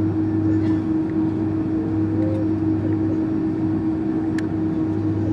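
Steady cabin noise inside an Airbus A310 airliner taxiing after landing: an even drone with a constant hum.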